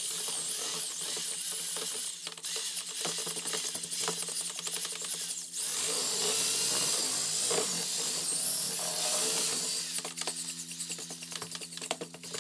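Handheld power drill with a mixing paddle running in a plastic bucket, churning a thick wet paper-clay mix. It gets louder and steadier in the middle, then turns choppy and intermittent near the end as the paddle is worked around and lifted.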